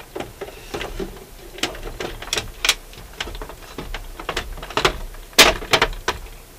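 Irregular mechanical clicks and clunks from a Dual 1228 turntable's changer mechanism and plinth as the turntable is handled and tipped up on its side, with the loudest knock about five and a half seconds in.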